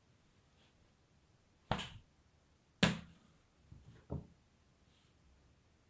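Hands handling a sheet of dough on a floured countertop: two sharp slaps about a second apart, then a few softer taps.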